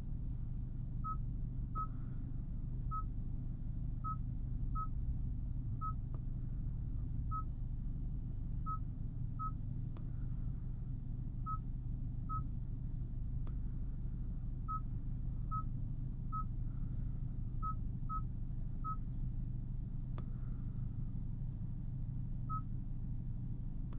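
Short single beeps, all at the same pitch, from the Genesis G70's infotainment and settings controls, about twenty at irregular intervals as settings are changed, with a few faint button clicks. Underneath runs the low steady hum of the idling 2.0-litre turbocharged four-cylinder engine.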